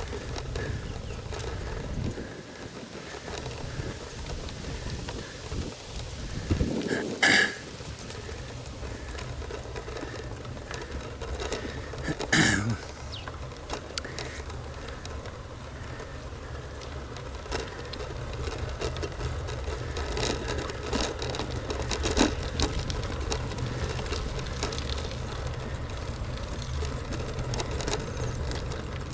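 Wind buffeting the microphone and tyre noise from a bicycle ridden on a road, with small rattles from the bike and two louder knocks, about 7 and 12 seconds in.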